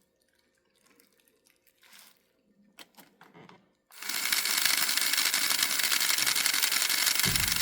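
A few faint clicks, then about four seconds in the electric motor and gear train of a Rivarossi Casey Jones 4-6-0 model locomotive start up with a loud, steady mechanical whirr as it runs on the track, with a brief low thump near the end.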